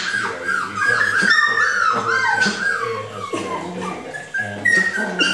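Schnockerpoo puppies, a Miniature Schnauzer and cockapoo cross, giving a continuous run of high-pitched whimpers and yips while they play, many short squeals overlapping and sliding up and down in pitch.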